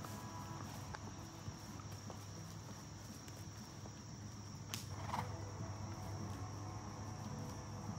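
Steady high-pitched chorus of crickets, with faint soft hoof footfalls of a horse walking on grass. A brief sharp noise and short rush of sound about five seconds in.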